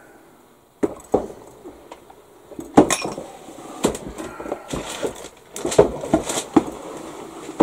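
Irregular knocks, clatter and rustling of tools, kit parts and boxes being moved about and set down on a hobby workbench.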